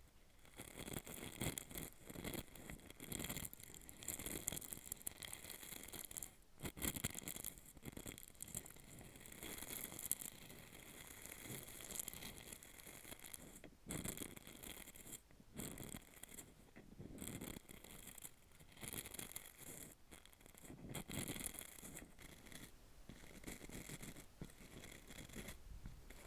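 Soft, close-up scraping and rubbing on a hollow capsule, in irregular strokes with a few sharp clicks between them.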